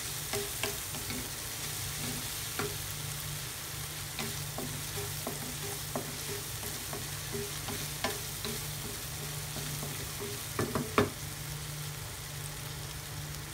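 Ground beef sizzling in a frying pan as a wooden spatula stirs it, clicking and scraping against the pan, with a few louder knocks near the end.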